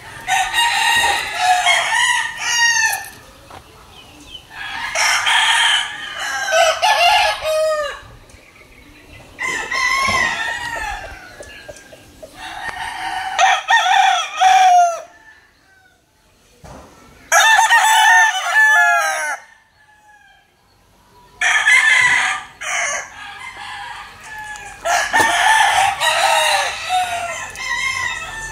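Rooster crowing again and again, about eight loud crows a few seconds apart, with short quiet gaps between them.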